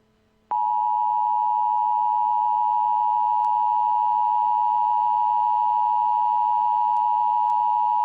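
Emergency Alert System attention signal: a steady two-tone electronic tone that switches on about half a second in and holds unchanged. It marks the start of an emergency alert message.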